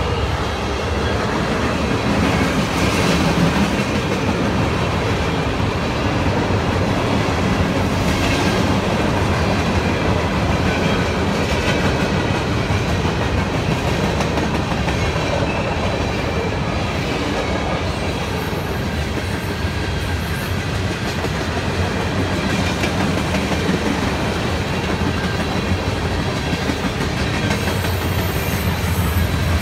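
Freight cars of a long mixed train, covered hoppers and tank cars, rolling past on steel wheels, giving a steady, unbroken noise of wheels on rail.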